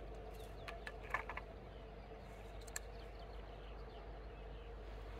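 Quiet lakeshore ambience with a steady low hum, broken by a short run of faint clicks and ticks in the first second and a half and one more near three seconds in.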